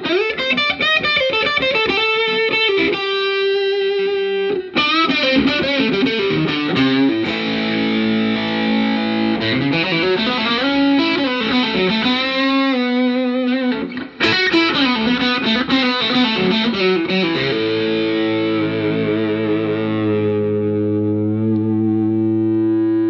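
Gretsch G5420-TG hollowbody electric guitar played through the Peavey Classic 30 tube amp's overdriven channel: distorted lead lines with string bends and vibrato. From about two-thirds of the way in, a chord is struck and left ringing.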